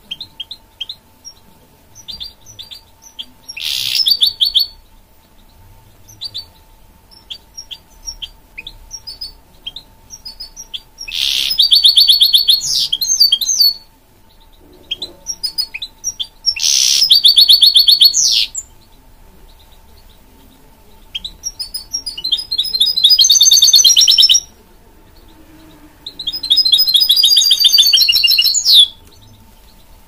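A caged goldfinch mule (a goldfinch hybrid) singing. Scattered short chirps are broken by five loud phrases of fast trilling song, each lasting one to three seconds.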